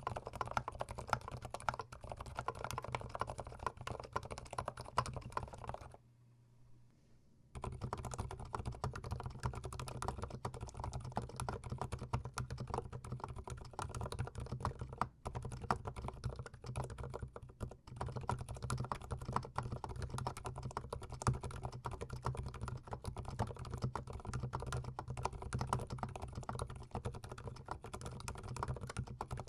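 Fast, continuous typing on a Glorious GMMK Pro gasket-mount mechanical keyboard, close-miked, with dense key clacks. The typing breaks off for about a second and a half some six seconds in, then resumes.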